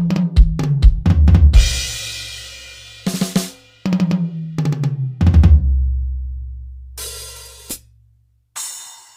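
MJ Audio SKD203 electronic drum kit played on its stock sounds: quick tom fills that step down in pitch, each landing on a bass drum hit and a crash cymbal that rings out. Near the end come a few single cymbal hits with short gaps between them.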